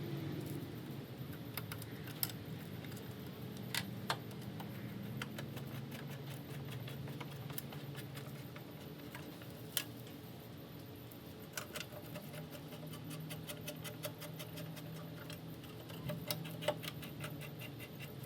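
Small hand tool clicking and ticking as the headlight's retaining bolts are run in and tightened: scattered sharp clicks and short runs of rapid ratchet-like ticks, over a low steady hum.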